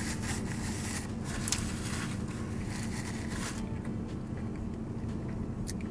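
A paper napkin rustles as it is rubbed over the mouth, stopping about three and a half seconds in, over a steady low hum inside a closed car. Faint chewing follows.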